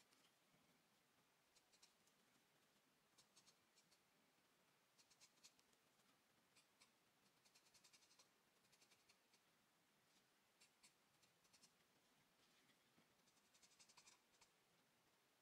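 Charcoal pencil scratching faintly on drawing paper in short groups of quick strokes, with brief pauses between the groups.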